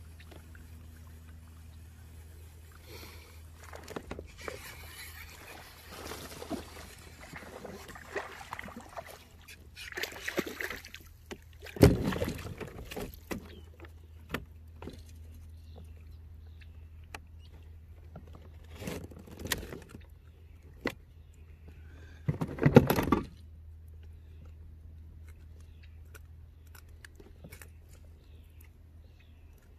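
Handling noise from an angler in a kayak: scattered rustles and knocks against the boat and tackle, with two loud thumps about twelve seconds in and about twenty-three seconds in, over a steady low hum.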